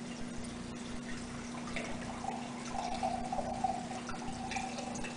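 Bourbon poured from a bottle into a glass pint canning jar, the jar filling, growing louder about two seconds in. A steady low hum runs underneath.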